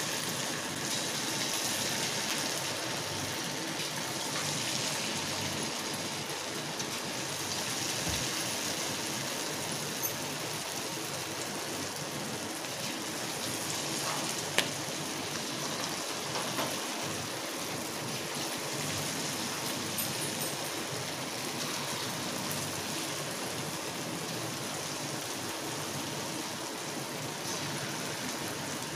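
Potato-onion pakoras deep-frying in hot oil in a kadhai: a steady sizzle and bubbling of the oil, with a few small sharp crackles, one standing out about halfway through.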